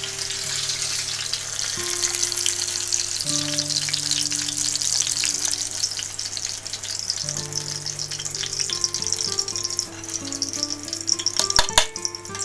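Hot oil sizzling and crackling as green chillies fry, over soft background music. A few sharp clinks near the end.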